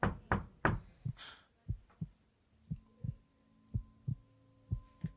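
Three quick knocks on a bedroom door, followed by a low heartbeat sound effect: a double thump about once a second.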